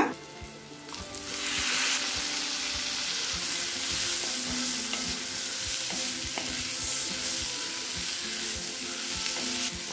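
Parboiled cauliflower florets sizzling in hot oil and masala in a cast-iron kadai while being stirred with a wooden spatula. The sizzle starts about a second in and then holds steady, with light knocks and scrapes of the spatula against the pan.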